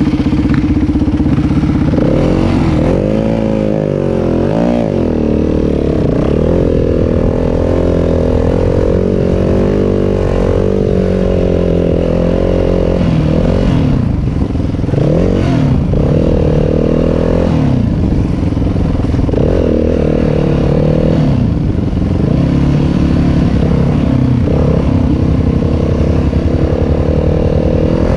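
Yamaha WR250F dirt bike's four-stroke single-cylinder engine running on the trail, the revs rising and falling over and over as the rider works the throttle and gears.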